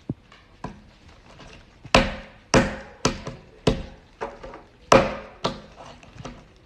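A series of sharp knocks and thumps on a hard object, about a dozen, irregularly spaced, the loudest around two and five seconds in.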